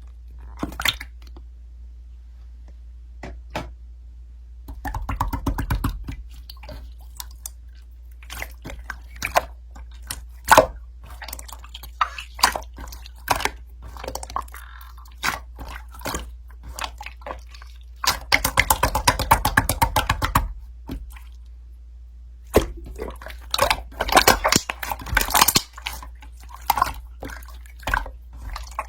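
Many small, sharp close-up clicks and taps at an uneven pace, with a dense rapid run of them about two-thirds of the way in.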